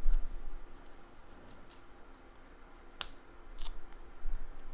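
Cut cardstock pieces being handled on a work table: a soft knock at the start, a sharp click about three seconds in and a fainter one shortly after.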